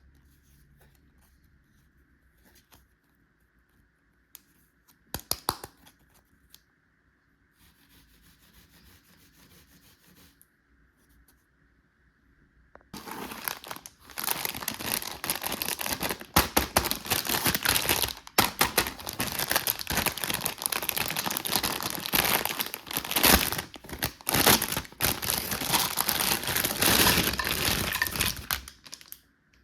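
Packaging being crinkled and torn open, a dense, loud crackle that starts about halfway in and lasts some fifteen seconds. Before it, a few light clicks and a soft rustle.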